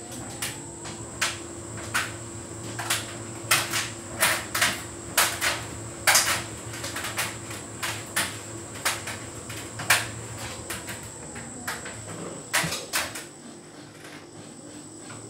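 Hotpoint heat pump tumble dryer running a synthetics cycle: a steady machine hum with a faint high whine, under irregular sharp clicks and knocks as the load tumbles in the drum.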